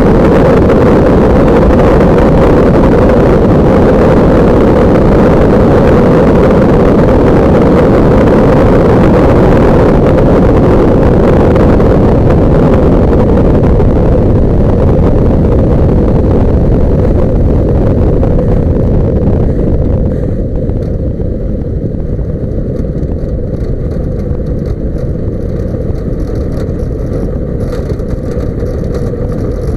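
Kolb Mark III ultralight's engine and propeller running steadily, heard from a camera mounted on the wing, during a low approach and landing. About two-thirds of the way through the sound drops suddenly and loses its hiss as the aircraft rolls along the runway.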